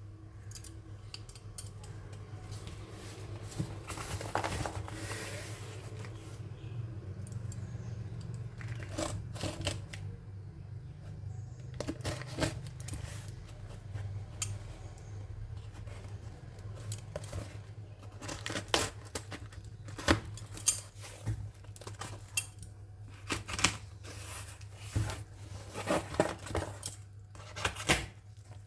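Shipping package being opened by hand: packaging tearing and crinkling, with scattered sharp clicks and knocks that grow more frequent in the second half, over a steady low hum.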